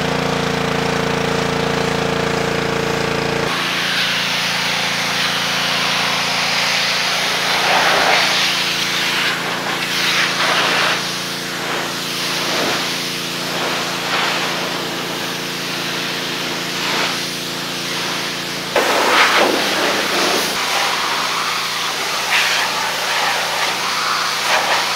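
Water spraying onto a car in repeated short bursts during a car wash, over a steady mechanical hum.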